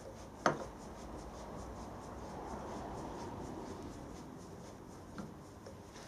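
A single sharp metallic clink as the steel Myford lathe handwheel is seated on a parallel in the milling vise, followed by faint rubbing and handling of the work and a small tick near the end.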